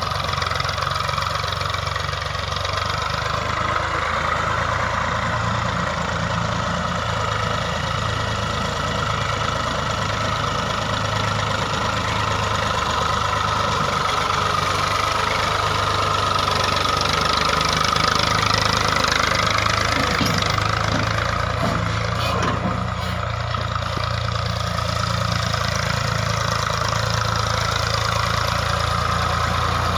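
Massey Ferguson 240 tractor's three-cylinder diesel engine running steadily while the tractor pulls a rear-mounted tillage implement through dry soil.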